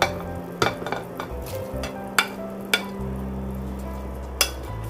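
Sliced mushrooms tipped from a plate into a pot of simmering yukgaejang broth, with several sharp clinks of dishware against the pot over the bubbling of the soup.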